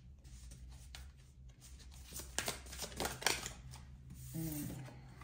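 Tarot cards being handled: a card slid from the deck and laid on a wooden tabletop, with a few short brushing and slapping strokes about two to three seconds in.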